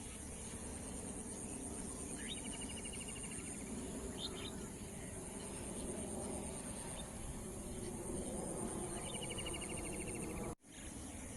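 Evening outdoor ambience: a steady, very high insect trill runs under a low background noise. A bird calls twice, each call a quick upward note followed by a rapid trill about a second long, with a few short chirps between. The sound cuts out briefly near the end.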